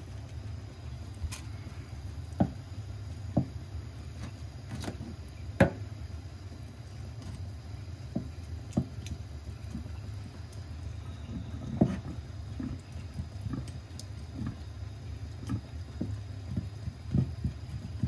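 A kitchen knife cutting up a scorpionfish on a wooden cutting board: scattered short knocks and scrapes as the blade cuts through the fish and strikes the board, over a steady low hum.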